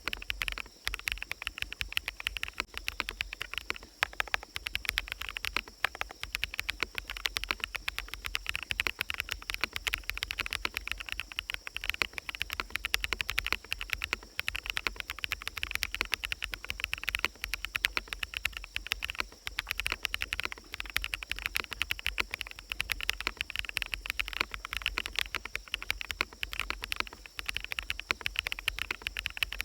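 Continuous, quick typing on a mechanical keyboard with fully lubed BSUN Sunset Yellow switches, many keystrokes a second, laid over a steady forest ambience.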